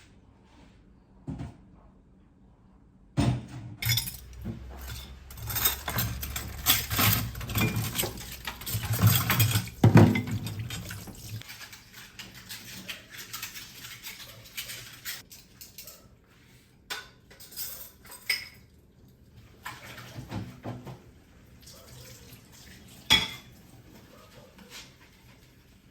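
Dishes and cutlery clattering in a kitchen sink under a running tap for several seconds, then the water stops and scattered clinks follow as dishes are handled and set down.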